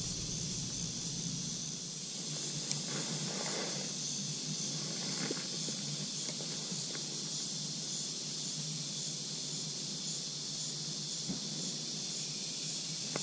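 Steady high-pitched insect chorus, an even buzzing drone, with a few faint ticks.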